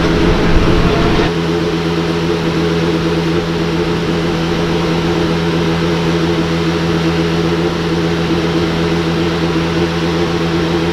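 A steady mechanical hum with an unchanging pitch, following a brief louder rush of noise in the first second.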